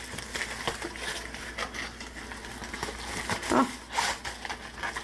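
Rustling and light crinkling of packaging as a rolled fabric paint-by-numbers canvas is handled and slid back into its pouch, with a short voice-like hum about three and a half seconds in.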